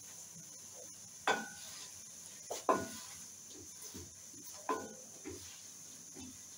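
A spatula stirring sliced onions and tomatoes in a metal pan: four or five sharp scrapes and knocks against the pan, some with a brief ring.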